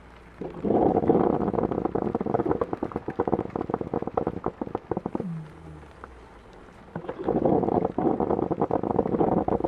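Coffee maker gurgling and sputtering as it brews, in two bursts: one of about five seconds and one of about three near the end. A soft, steady hiss of rain lies underneath.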